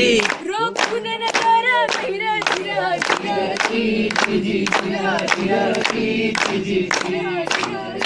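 Young women singing a song together in Marathi, kept in time by steady rhythmic hand clapping of about two to three claps a second.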